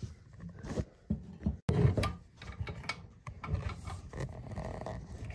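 Scattered clicks and rubbing of a flexible metal toilet supply line and its nut being turned by hand onto a chrome shutoff valve, with a louder knock about two seconds in.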